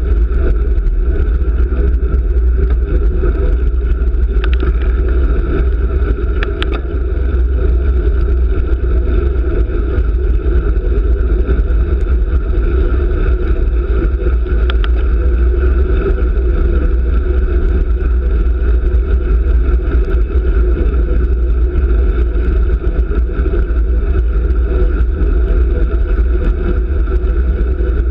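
Steady low rumble of wind and road vibration on a handlebar-mounted camera's microphone as a road bicycle rides fast in a pack on a wet road. A few faint clicks come through, around five, seven and fifteen seconds in.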